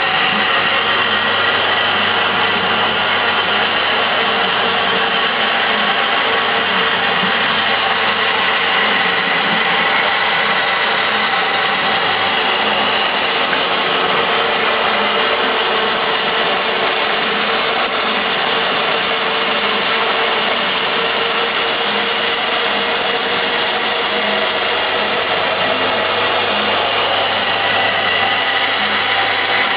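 Kinetic sculpture's motor-driven mechanism running steadily, a continuous mechanical whirr with a faint low hum and a light, even repeating rattle of its moving parts.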